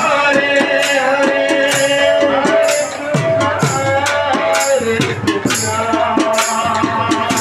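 Live Odia kirtan music: a large two-headed barrel drum played by hand, its deep strokes bending down in pitch, under metallic jingling strikes in a steady beat and a held, wavering melody line.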